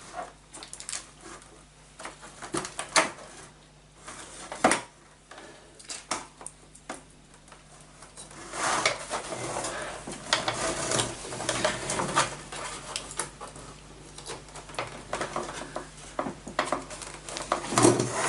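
Hands handling a video cable and its plugs: scattered small clicks and knocks of plastic and metal, one sharper knock about five seconds in, then denser rubbing and rustling with more clicks from about halfway through.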